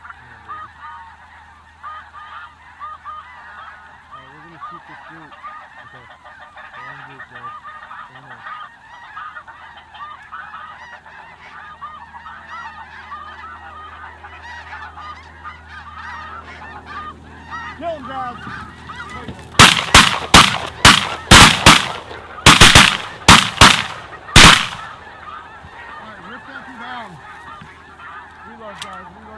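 A large flock of snow geese calling continuously in a dense, overlapping chatter. About two-thirds of the way in, a rapid volley of roughly a dozen shotgun shots goes off over about five seconds as the hunters fire on the landing birds, and then the goose calling carries on.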